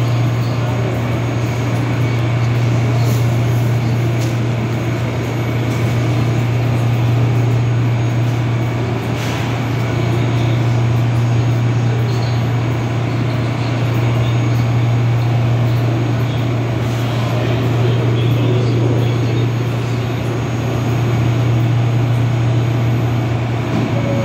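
R179 subway train standing at the platform with its doors open, its onboard equipment giving a steady low hum.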